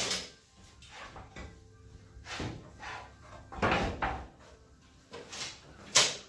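Scattered knocks and scuffs of someone moving about a woodshop and handling lumber, about five in all, with a sharp knock near the end.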